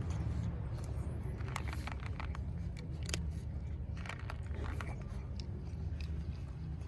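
A cat's close-up mouth sounds, irregular wet clicks and smacks of licking or chewing, over a steady low rumble.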